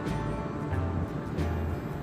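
Background music with held notes over a repeating bass line and occasional percussive hits.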